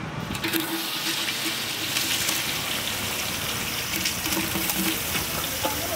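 Sliced onions hitting hot oil in a large aluminium cooking pot, a steady hiss with crackling that starts just after the first handful goes in.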